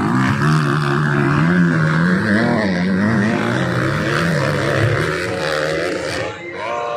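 Motocross bike engines revving hard and easing off as the bikes ride the dirt track, the pitch rising and falling over the seconds.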